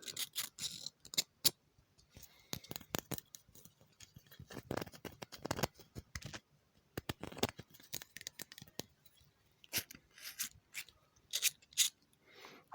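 A bottle of saline solution handled close to the microphone: irregular sharp clicks, taps and short crackling rustles.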